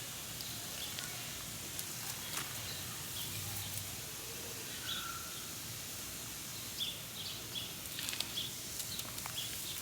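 Outdoor garden ambience: a steady faint hiss with scattered light rustles and clicks, and a few short faint bird chirps in the second half.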